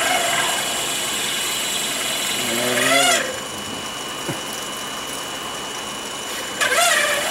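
A half-inch drill bit chattering and squealing as it cuts in a mini mill, in a wavering, pitched screech. It lasts about the first three seconds and comes back near the end, over the mill's steady high whine. The chatter points to a cut that is short of lubricant.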